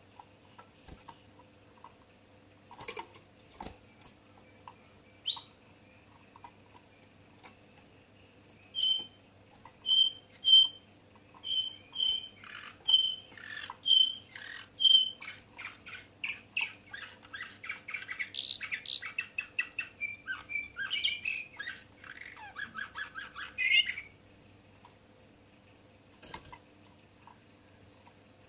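Caged canary singing: after a quiet start, a run of single clear chirps about two a second, then a fast, dense warbling trill lasting several seconds that stops abruptly. A few soft knocks sound in the quiet stretches.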